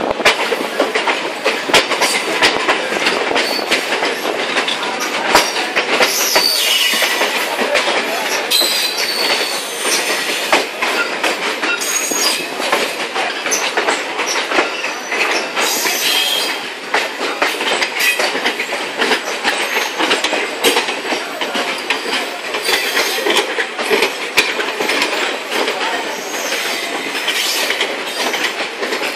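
Electric multiple-unit commuter train running at speed, heard from its open doorway: steady wheel and track noise with rapid clicking over rail joints and points, and occasional high wheel squeals. At first the coaches of a passing express train run close alongside.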